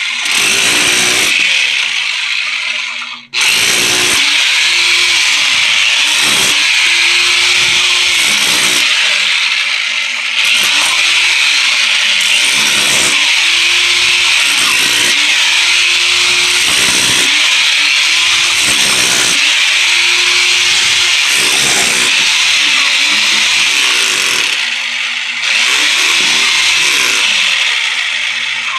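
Electric chipping hammer running, breaking up a tough, compacted floor layer; its motor pitch keeps sagging and recovering as the bit bites. It stops briefly about three seconds in and cuts off near the end.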